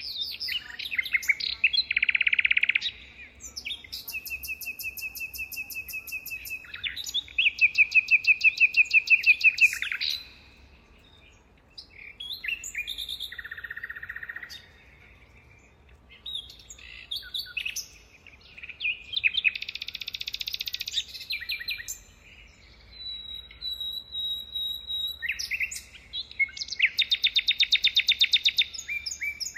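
Birdsong: loud phrases of rapid trills, chirps and fast repeated notes, each lasting a few seconds and separated by short pauses, with some very high thin notes.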